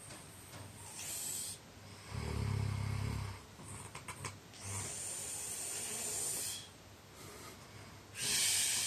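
A person snoring in sleep: one low, pulsing snore about two seconds in, and long hissing breaths out, the loudest near the end. A few faint clicks of the mouth come in the middle.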